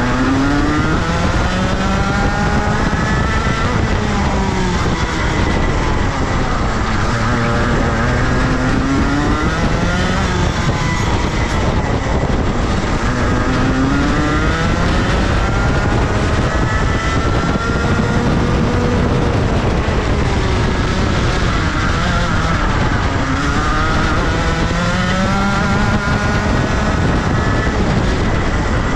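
Rotax Max Senior kart's 125cc single-cylinder two-stroke engine at racing speed, its pitch climbing as it accelerates and dropping as the driver lifts, several times over, as it runs through the corners of a lap.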